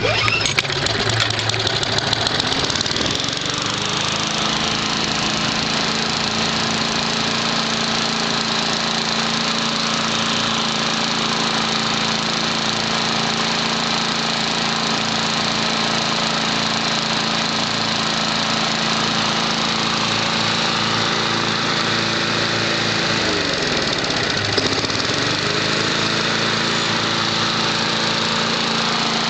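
Push lawn mower's small Briggs & Stratton engine running steadily at a constant speed. Its pitch climbs over the first few seconds as it settles. About 23 seconds in it sags briefly, then picks back up to speed within about two seconds.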